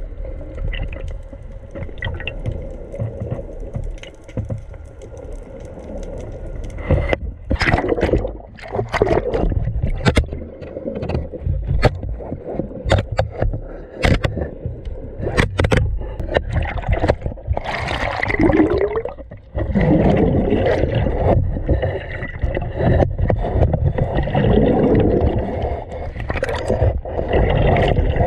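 Sea water sloshing and gurgling around the camera, with a steady low rumble and many scattered knocks and scrapes.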